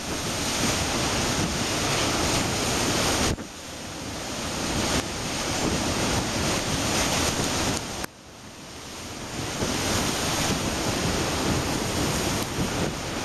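Storm wind buffeting the microphone over heavy surf breaking and churning. The rushing noise drops away suddenly twice, a little after three seconds and about eight seconds in, and builds up again each time.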